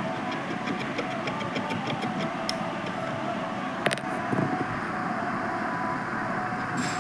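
Steady background hum with light, rapid scratching: cotton soaked in thinner being rubbed over the contacts of a TV's HDMI port. A single sharp click about four seconds in.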